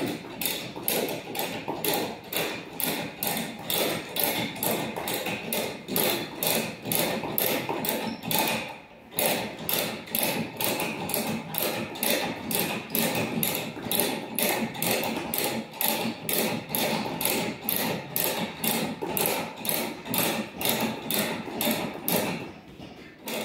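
A van's jack being cranked by hand, each turn of the crank giving a short metallic click or knock, about two a second in an even rhythm, with a brief pause about nine seconds in and again near the end. This is the jack raising the van until the wheel clears the ground.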